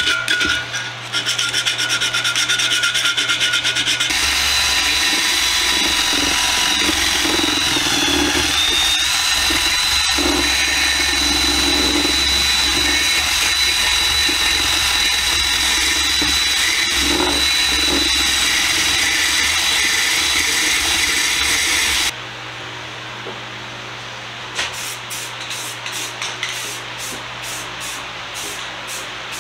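Hand sanding of a bare metal can with 150-grit sandpaper in short, rapid strokes. About four seconds in, a cordless drill starts and runs steadily with a spinning attachment inside the can's spout, its whine dipping briefly under load. It cuts off suddenly about three quarters of the way through, leaving only quieter light handling knocks.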